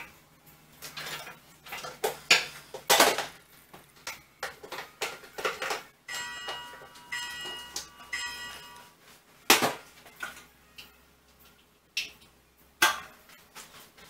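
Clatter and sharp knocks of kitchen items and a lidded countertop cooker being handled and moved on a tiled counter. The loudest knocks come about three seconds in and twice near the end, and a ringing tone lingers for a few seconds in the middle.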